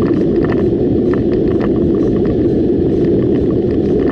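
Steady road and engine noise heard inside a moving car: a low, even rumble with small irregular clicks over it.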